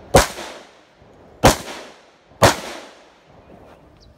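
AR-15 rifle fired in slow single shots: three shots roughly a second apart, each trailing off in a short echo.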